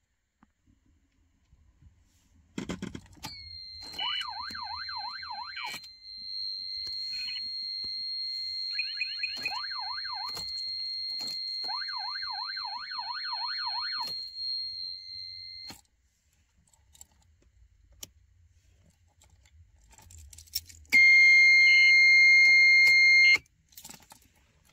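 Citroën 2CV's electronic alarm sounding: a steady high-pitched beep held for about twelve seconds, with a fast warbling siren sweep (about four sweeps a second) coming in three times over it, and switch clicks. Near the end a second, louder steady beep sounds for about two seconds.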